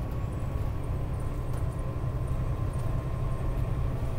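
Steady low engine and road drone inside a loaded semi-truck's cab at highway cruising speed.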